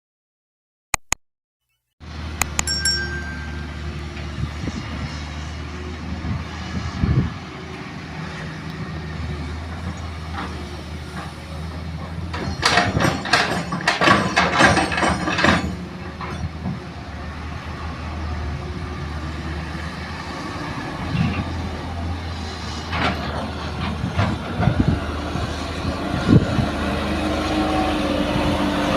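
Heavy diesel excavator engine running with a steady low drone, with a burst of clattering impacts about halfway through as sand and gravel are dropped into a dump truck's steel bed, and a few single knocks later. It starts after a short silence with two clicks.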